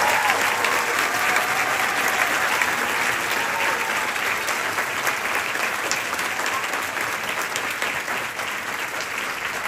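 Large audience applauding, with a few cheering shouts in the first few seconds; the clapping slowly dies down.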